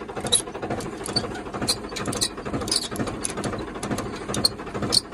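Tractor engine running at a steady low hum while it pulls a laser land leveller, with many irregular small clicks and rattles over it.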